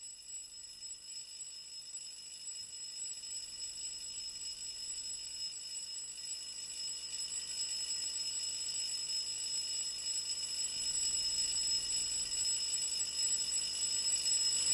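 Electric bell ringing continuously inside a sealed glass bell jar, a steady high ringing that grows gradually louder as air is let back into the partly evacuated jar and sound can again travel through it.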